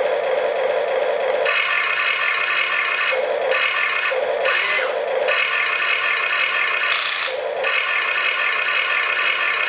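Electric gear motors of a toy RC excavator whining in start-stop runs as the boom, arm and bucket move. The pitch jumps up each time a motor starts and drops back to a steady lower hum in the pauses. A couple of short rasping scrapes come through.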